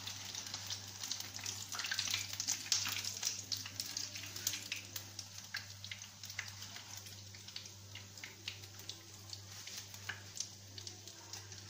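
Breaded chicken patties shallow-frying in hot oil in a pan: a steady sizzle with many small crackles and pops. The crackling is densest in the first half and thins out after about halfway, once the patties are golden brown.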